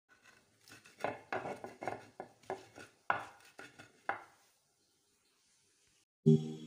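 Wooden pestle pounding and grinding chopped onions, tomatoes and peppers in a Ghanaian grinding bowl (asanka): about a dozen irregular knocks over some three seconds, then it stops. Louder music starts just before the end.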